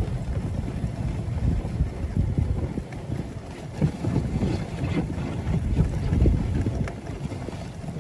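Wind buffeting the microphone on a moving dog sled, with the low rumble of the sled running over snow behind the husky team. The rumble is uneven, rising and falling in gusts.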